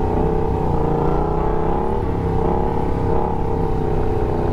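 Yamaha stunt motorcycle's engine running at steady revs under the rider, its pitch wavering only slightly, over a low rumble.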